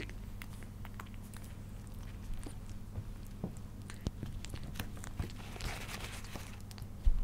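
A small kitten licking and chewing wet cat food, a run of soft wet clicks and smacks from its mouth. About two thirds of the way through there is a brief papery rustle, and a low thump near the end.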